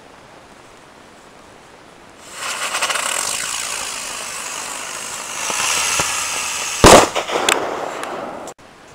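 A firework goes off about two seconds in and sprays sparks with a crackling hiss. Near the end comes one sharp, loud bang, followed by a few smaller pops, and then the sound cuts off abruptly.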